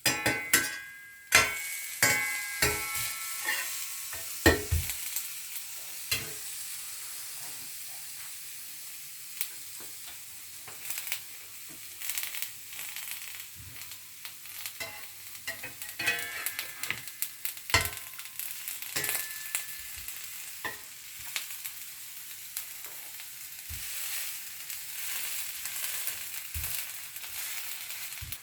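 Onion dosa sizzling in ghee in a hot pan, with a metal spatula scraping and clinking against the pan. The clinks ring out most in the first few seconds and again about sixteen to nineteen seconds in.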